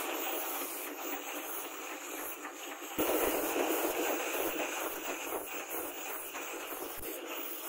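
Angle grinder with a flap disc running against a steel knife blade, grinding and smoothing the forged rebar. A steady, hissing grind that gets suddenly louder about three seconds in.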